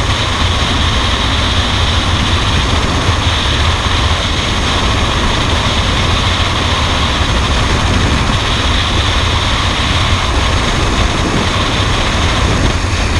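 Loud, steady rush of freefall wind buffeting a helmet camera's microphone during a skydive.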